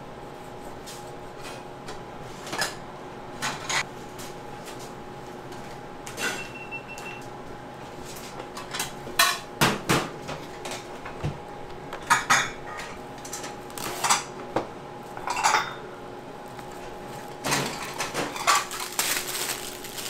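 Ramen-shop kitchen clatter: bowls, pots and utensils clinking and knocking at irregular intervals, busier near the end, over a faint steady hum of kitchen equipment.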